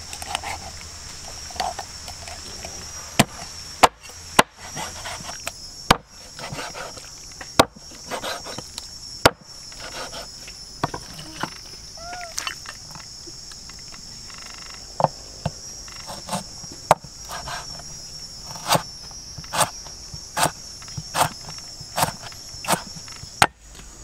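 Heavy cleaver chopping raw chicken on a wooden chopping block: sharp single knocks, irregular and spaced out at first, then steadier at about one a second near the end. A steady high drone of insects runs underneath.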